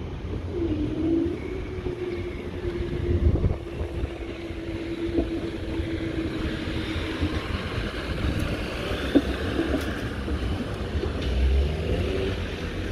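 A train running past, a continuous low rumble with a steady whine held for about seven seconds.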